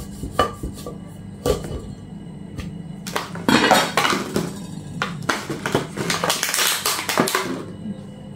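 Kitchen food-prep handling noises: a couple of sharp knife clicks as a lime is cut over a mortar, then a few seconds of clattering and rustling as things are handled on the table. Soft background music runs under it.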